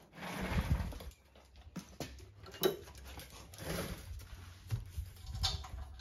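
A German Shepherd dog close by, making a few breathy huffs and snuffles: one near the start, one a little past the middle and one near the end, with a few light clicks between them.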